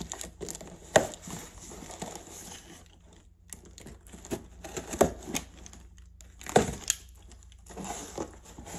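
Cardboard shipping box being opened with a utility knife: the blade scraping through packing tape, then cardboard flaps and packing material rustling and crinkling. A few sharp knocks and scrapes stand out, the loudest about a second in and around five and six and a half seconds.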